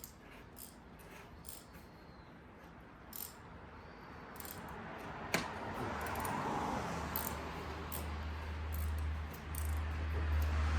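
Small clicks and plastic rubbing as the oil filter cover of a BMW N46 engine is screwed into its housing by hand. There is a sharp click about halfway through, after which a hiss and a low hum grow louder.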